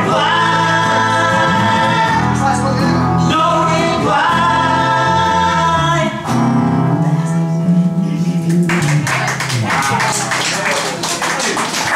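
Live band of acoustic guitar, electric guitar and bass guitar with men singing long held notes together. The song ends on a held chord about eight and a half seconds in, and clapping follows.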